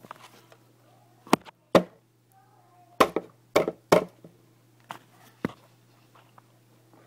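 A series of about seven sharp, separate taps and knocks, roughly a second apart, against a low steady hum.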